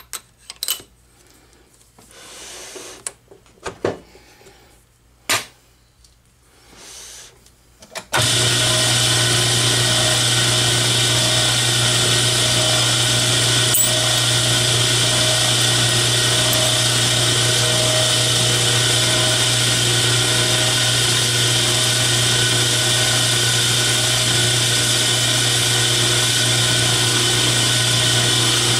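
A few scattered light clicks and knocks for the first eight seconds, then an Atlas 10-inch metal lathe starts suddenly and runs steadily with a strong hum, spinning a part in its three-jaw chuck while a twist drill held in the tailstock drill chuck drills into it. The lathe shuts off at the very end.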